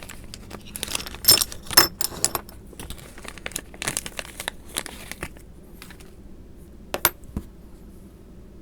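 Short anodised aluminium MakerBeam extrusions being handled, clinking and knocking against each other. The clicks come thick and fast for about five seconds, then thin out to a couple of single knocks near the end.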